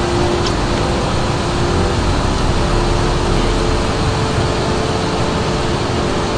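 Steady roar of a river in spate: brown floodwater spilling from an overflowing dam after heavy rain rushes past bridge piers. A faint steady hum runs underneath.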